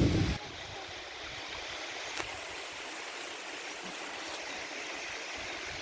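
Steady rushing of falling water from a waterfall and its stream. Wind buffets the microphone for the first half second.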